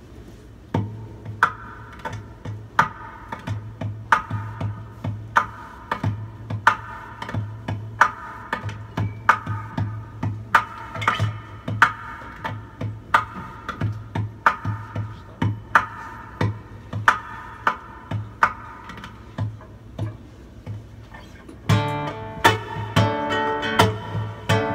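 Guitar playing an instrumental passage: an even pattern of plucked chords about every two-thirds of a second over a low bass note, turning to busier, fuller strumming near the end.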